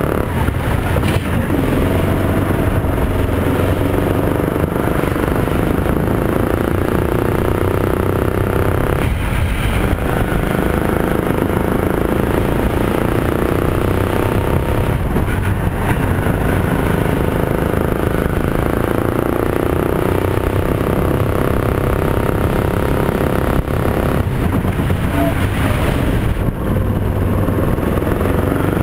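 Rental go-kart's Yamaha MZ200 engine heard onboard, running hard through a lap: the engine note climbs on the straights and drops briefly several times as the throttle is lifted for corners.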